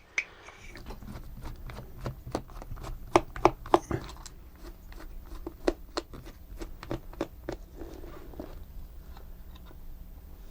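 Irregular clicks and taps of hands handling and working on the plastic body and parts of an Omnibot 2000 toy robot, busiest about three to four seconds in, over a steady low hum.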